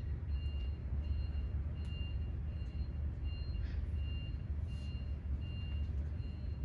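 Vehicle back-up alarm beeping steadily, about two beeps a second, over a constant low rumble.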